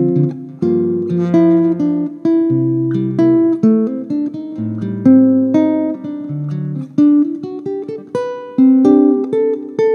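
Solo nylon-string classical guitar played fingerstyle: a melody picked over ringing chords and moving bass notes, each note plucked and left to decay.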